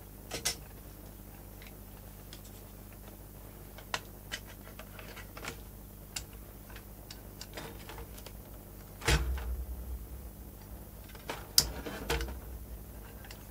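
Light clicks and taps from handling a circuit board and an electric desoldering gun. Twice in the second half comes a louder knock, each followed by a short low rumble.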